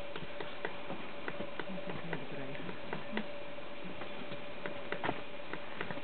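Magellanic woodpecker tapping and chipping at a tree trunk while foraging: irregular single light knocks, about one or two a second.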